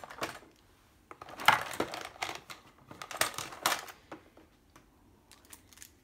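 Plastic packaging crinkling and small plastic tools clicking together as they are handled, in irregular bursts that thin out to a few light ticks near the end.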